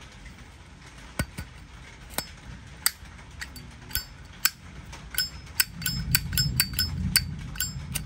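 Vintage 1997 Zippo lighter being handled: sharp metallic clicks with a brief ring, a few spaced ones at first, then many in quick succession from about five seconds in.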